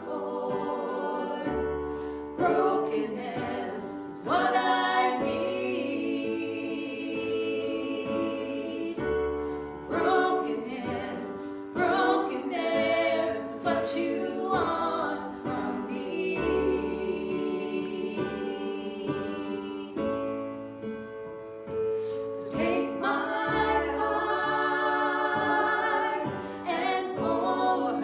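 Several voices singing a gospel-style worship song together, over an instrumental accompaniment with held bass notes.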